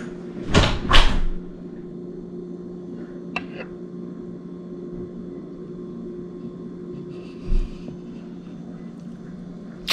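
A steady low electrical hum with a fainter, higher tone above it, like an appliance motor, interrupted by two sharp knocks about half a second and a second in and a soft thump near the end.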